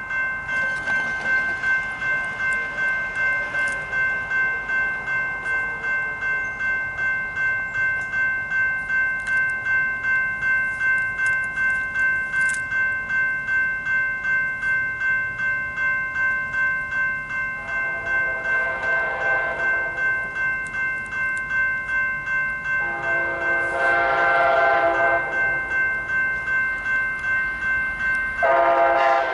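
Electronic railroad crossing bell ringing steadily with even, rapid strikes. In the second half, the approaching Amtrak Siemens ALC-42 Charger sounds its K5LA chime horn in three long blasts, each louder than the last as the train nears.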